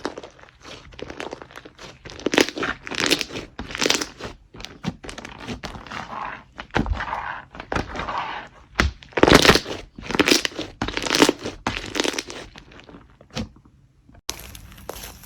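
Hands squeezing, poking and stretching slime: irregular crackly pops, clicks and squishes, some louder than others, with a brief break near the end.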